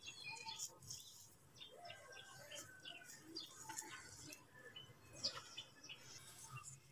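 Near silence, with faint scattered short chirps and light ticks.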